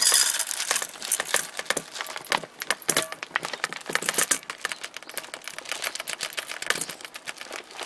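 Dry cat food pouring from a plastic container into a stainless steel bowl: a dense, irregular run of clicks and rattles as kibble hits the metal.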